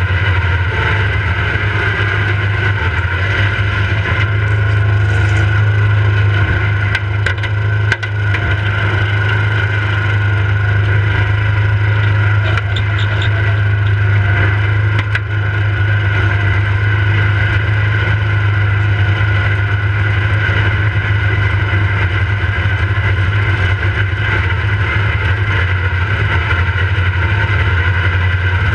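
Riding lawnmower engine running steadily with a strong low drone. Brush and branches scrape and snap against the mower several times in the first half.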